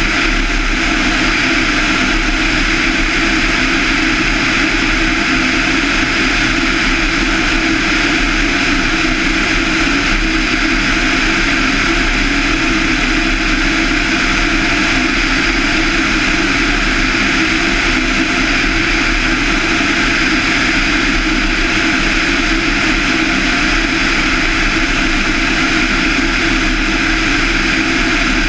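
A Van's RV-7's 200 hp Lycoming IO-360 four-cylinder engine and propeller running steadily in level flight, mixed with a rush of air over a camera mounted outside the airframe.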